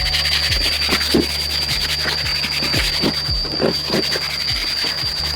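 Rhythmic rubbing, like hand or power sanding, over background music with a steady low beat.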